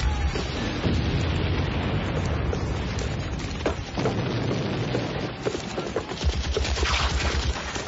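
Battle sounds of trench warfare: a continuous low rumble of shellfire and booms, with a few sharp gunshot cracks about halfway through.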